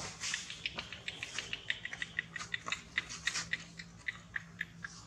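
Baby macaque chewing fruit, a quick run of short clicking smacks at about five a second.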